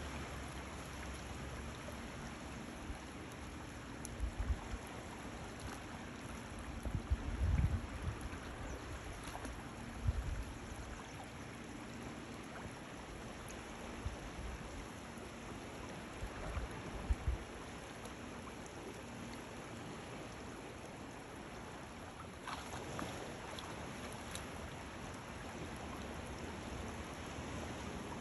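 Steady wash of shallow water running over a rocky shore. A few brief low rumbles come through, the strongest about seven to eight seconds in.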